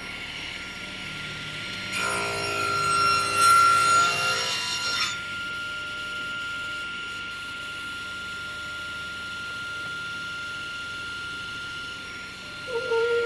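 Table saw running with a steady high whine. From about two seconds in, for some three seconds, the blade cuts through the wooden workpiece clamped in a sliding tenon jig, sawing a tenon cheek, before the saw runs on without load.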